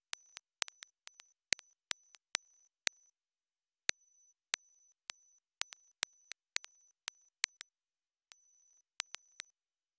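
TIG welding arc giving a steady high-pitched whine in short stretches, broken by sharp clicks about every third of a second.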